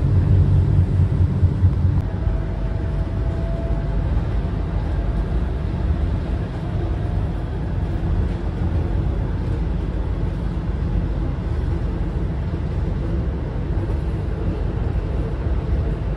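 Alicante tram in motion: a steady low rumble of wheels and running gear, heavier for the first two seconds and then even, with a faint whine from about two to four seconds in.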